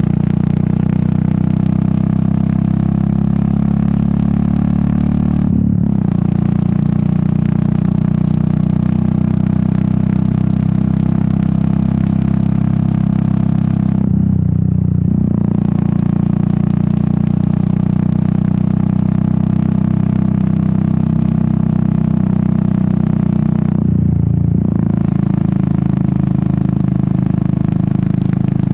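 Royal Enfield Meteor 350's single-cylinder engine and exhaust running on the road. The note drops away briefly three times, about nine seconds apart, and each time picks up and rises again.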